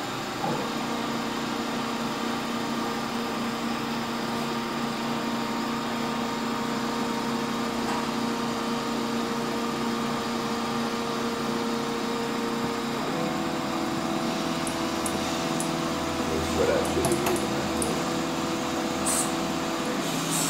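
Small CNC mill running a cutting program on a slingshot frame: a steady machining noise with a whine of several steady tones that changes pitch about two-thirds of the way through.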